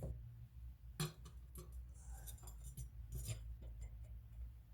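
A few faint metallic clicks and clinks from small screws and hand tools being handled, with a sharper click about a second in, over a low steady hum.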